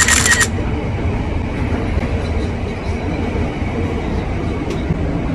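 Steady low rumble inside a commuter train carriage, opening with a brief loud burst of noise in the first half-second.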